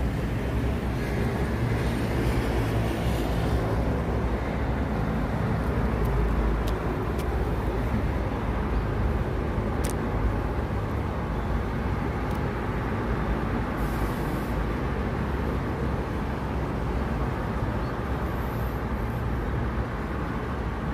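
Road traffic: a steady low rumble of cars and a bus moving through a wide intersection, with a few short clicks.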